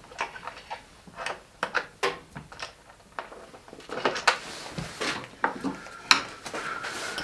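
Light clatter of small hard objects being handled: a series of irregular clicks and knocks.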